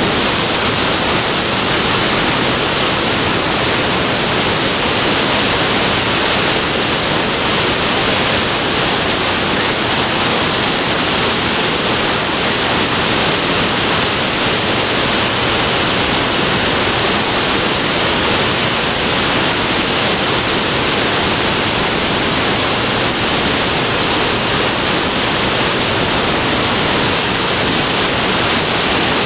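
River whitewater and falls running near flood stage: a loud, steady rush of water that does not let up.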